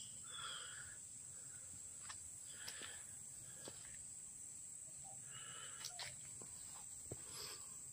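Faint outdoor ambience: a steady high insect drone, with a few faint chirps and small clicks scattered through it.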